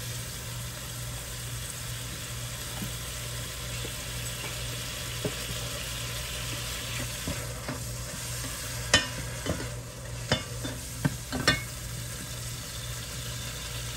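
Ground turkey sautéing in hot olive oil on high heat, a steady sizzle. A few sharp clicks come in the second half.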